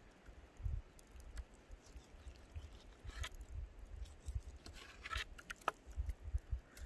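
A knife cutting raw black bear meat on a wooden plank: soft slicing and a few sharp taps and clicks of the blade and hands against the board, most of them after about three seconds, over irregular low thumps.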